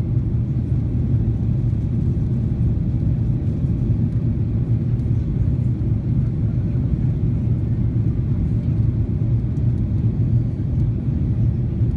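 Steady low rumble of a Boeing 737-800's CFM56-7B jet engines and the airflow over the fuselage, heard from inside the passenger cabin in flight.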